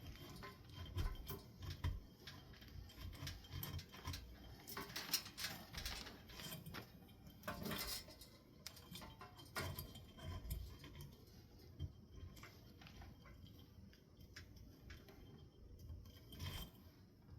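Faint, irregular clicks, rustles and light knocks of hands handling ceiling fan parts and wiring during reassembly, busiest a few seconds in.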